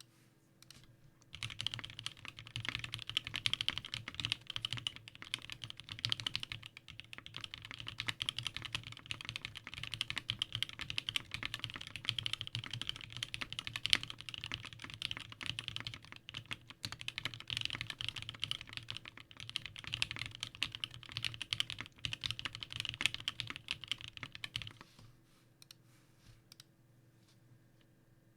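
Fast, continuous typing on a custom mechanical keyboard with lubed and filmed Marshmallow switches, a polypropylene plate and GMK doubleshot ABS keycaps. The typing starts about a second in and stops a few seconds before the end.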